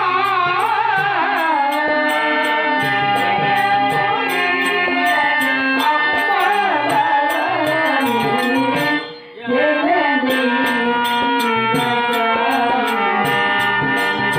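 A woman singing a Telugu stage-drama song over harmonium and a steady percussion beat. The music breaks off for about half a second, about nine seconds in, then carries on.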